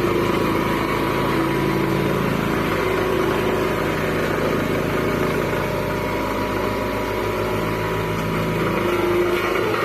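Diesel engine of a Hamm road roller running steadily at a low, even speed. Its deep rumble drops away near the end.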